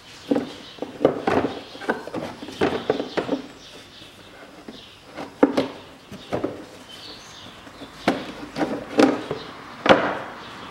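Irregular hollow knocks, clatters and scrapes of a plastic air filter housing being handled and pushed into place in a Peugeot 407's engine bay, the loudest knock near the end.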